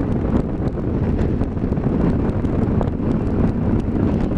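Heavy wind noise buffeting a helmet-mounted camera's microphone as a KTM 990 motorcycle is ridden at road speed, with the drone of its V-twin engine underneath.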